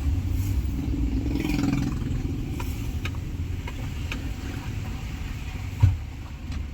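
Isuzu Trooper's 4JX1 turbodiesel engine running with a steady low rumble, after a no-start repair; a single short thump sounds near the end.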